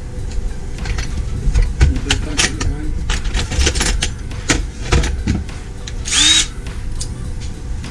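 Clicks and knocks of tools being handled, then an electric drill runs in one short burst about six seconds in, its motor whine rising as it spins up to drill a mounting hole.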